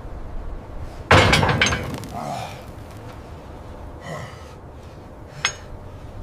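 Metal-on-metal clanks of wrenches working large steel bolts: one loud clank about a second in, then a few lighter knocks and a sharp click near the end, over a low steady rumble.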